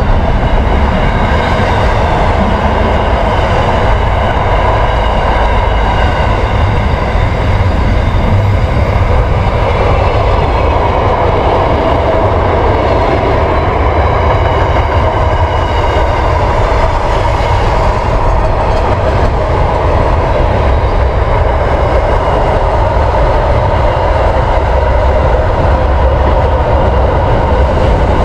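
Train rolling across a railway bridge, wheels on rail making a steady, loud rumble that goes on without a break.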